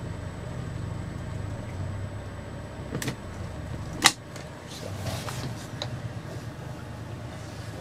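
Motorboat engine running at low revs, a steady low hum, during a slow docking manoeuvre out of gear. A sharp click about three seconds in and a louder sharp knock about a second later.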